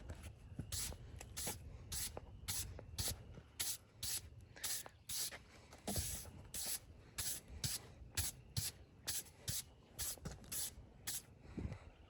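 Rhythmic brushing or scraping strokes, about two a second, like sawdust being brushed off a freshly milled wood slab.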